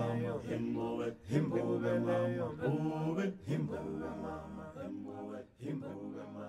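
Unaccompanied voices singing a short phrase over and over like a chant. It fades gradually towards the end.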